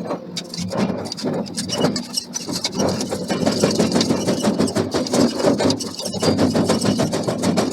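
Forging machinery running with a dense, rapid knocking rattle, many strikes a second, steady throughout.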